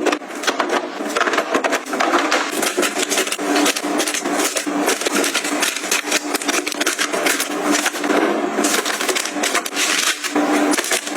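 Dense, continuous handling noise: quick clicks, taps and rustles of packaging and containers being picked up and set down while a cabinet is being restocked.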